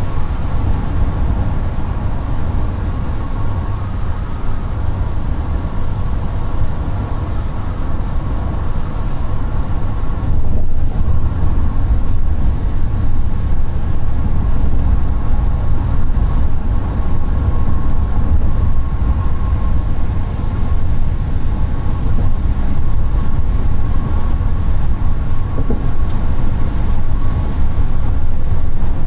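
Road and engine noise inside a van's cabin at highway speed: a steady low rumble with a thin steady whine above it, getting a little louder about ten seconds in.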